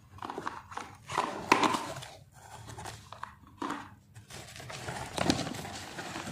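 Bubble wrap and plastic courier packaging rustling and crinkling as it is pulled open by hand, in irregular bursts.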